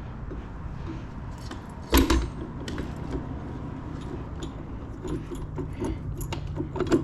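Metal parts clinking and knocking as a rear wheel, spacer and axle are worked into a motorbike's frame by hand: one loud knock about two seconds in, then a run of small metallic clicks and rattles near the end.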